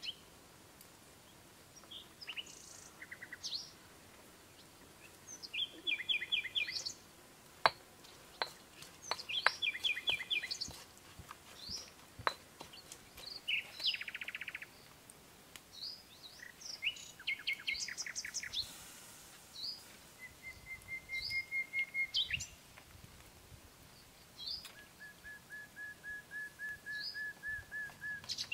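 Several birds chirping and calling: short rising chirps, quick runs of repeated chirps and a couple of even trills. A few sharp clicks fall among the calls, the loudest about a quarter of the way in.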